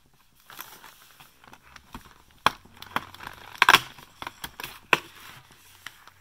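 Fingernail picking at and prying open a perforated cardboard advent-calendar door: scattered small clicks and crackles of card, the loudest about three and a half seconds in.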